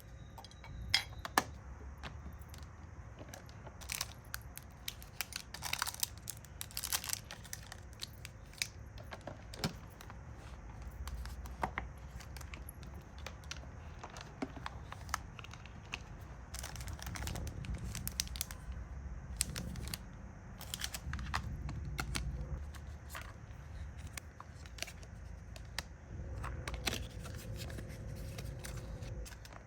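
Hands packing small resin accessories: plastic packaging crinkling and tearing, with many scattered sharp clicks of hard pieces being handled.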